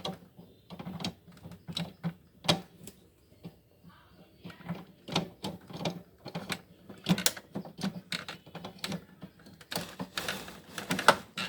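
Irregular plastic clicks and knocks from pressing ink cartridges into the carriage of an HP DeskJet 2676 printer and handling its parts, with a denser run of clattering about ten seconds in.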